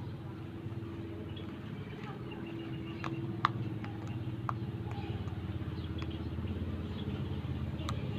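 Steady hum of a motor vehicle's engine running, growing slightly louder near the end, with a few sharp clicks, the loudest about three and a half seconds in.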